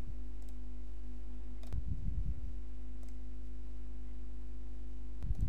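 Steady low electrical hum with a few faint computer-mouse clicks scattered through, and soft low thumps about two seconds in and again near the end.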